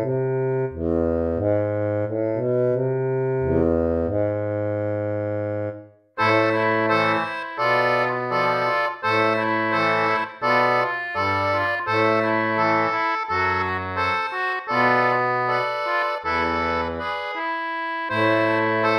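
Instrumental music of held chords over a bass line. It breaks off about six seconds in, then comes back brighter and fuller, with short rhythmic chords.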